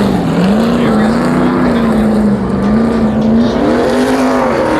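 NASCAR race truck's V8 engine revving, its pitch swinging up and down as the throttle is worked.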